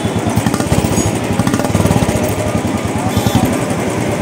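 Royal Enfield 350 single-cylinder motorcycle engine running through a newly fitted aftermarket black silencer, with a rapid, even exhaust beat.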